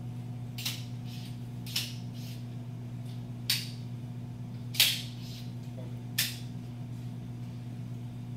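About six sharp, light clicks a second or so apart from a small object handled in the hands, the loudest about five seconds in, over a steady low room hum.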